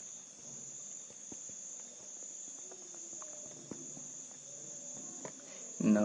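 Steady high-pitched tone in the background, with a few faint, scattered taps as a stylus writes on a drawing tablet.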